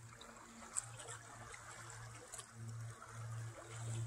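Small river waves lapping and splashing against the muddy bank, with a low hum underneath that comes and goes and swells near the end.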